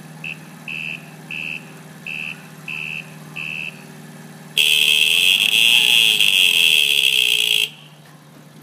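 Honda Trail 70 mini bike idling while its turn-signal beeper sounds in short, evenly spaced high beeps, about one and a half a second, then its horn sounds loudly in one steady tone held for about three seconds.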